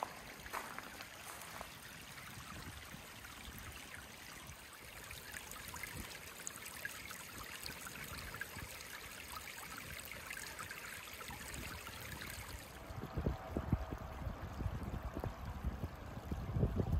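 Rhine river water lapping and trickling softly against a pebble shore, a steady hiss with small splashes. About three-quarters of the way in a louder, uneven low rumble takes over.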